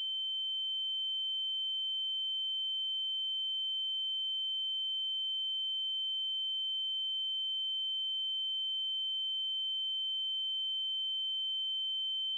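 A steady, high-pitched electronic sine tone holding one pitch without change, with a much fainter lower tone beneath it.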